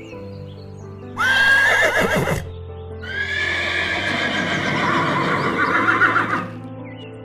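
Horse whinnying twice over background music: a short whinny about a second in, then a longer, wavering one from about three seconds to six and a half.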